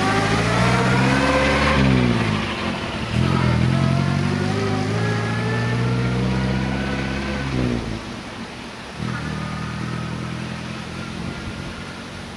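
1931 Swift Crusader vintage car accelerating away through the gears. The engine note climbs, drops at a gear change about two seconds in, climbs again and drops at a second change near the middle, then fades as the car draws off.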